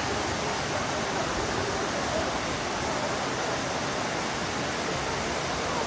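Kapuzbaşı waterfall: a steady, even rush of falling water.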